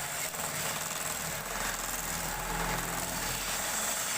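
Wood lathe running steadily: a low motor hum, strongest in the middle, under a steady hiss.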